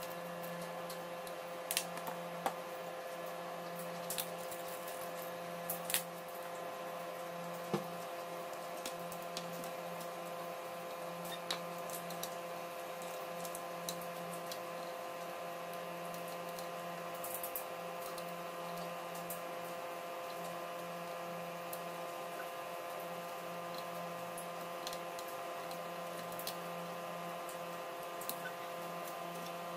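Scattered small clicks and taps of fingers handling plastic parts and connectors inside an opened laptop case, over a steady low electrical hum.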